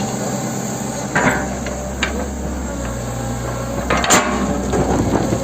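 Hitachi 110 M excavator's diesel engine running steadily, with a few sharp metallic clanks from the working machine, the loudest about four seconds in.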